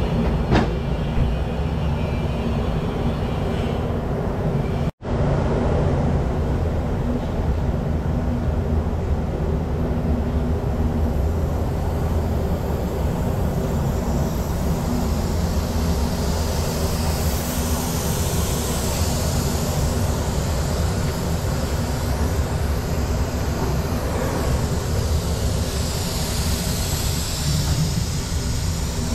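RandBright HD-100 semi-automatic centerless grinder/polisher running on test: a steady mechanical hum and rush of noise, briefly cutting out about five seconds in.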